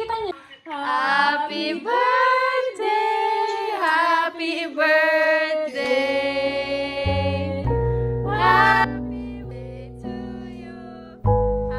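Music: a woman's voice singing, alone for the first few seconds, then low sustained instrument notes come in about six seconds in beneath it.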